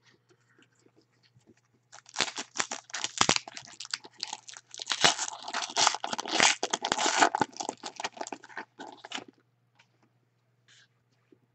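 Foil wrapper of a soccer trading-card pack being torn open and crinkled by hand, a dense crackling that starts about two seconds in and stops about nine seconds in.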